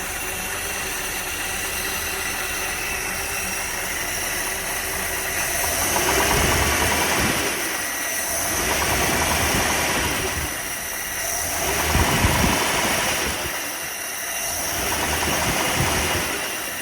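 1957 Mercury 368 V8 engine idling steadily, then revved four times with the throttle blipped and let back down. It carries a knock that the owner traces to the #7 cylinder, since it goes away when that spark plug wire is pulled.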